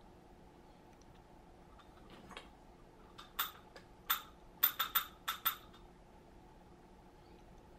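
Hair stacker tapped down repeatedly to even the tips of a bunch of elk hair for a fly's wing: a run of about eight sharp taps over some three seconds, starting about two seconds in.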